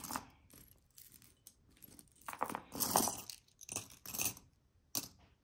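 Small pieces of jewelry clinking and rattling as they are handled and sorted, in a few short spells, with a sharp click near the end.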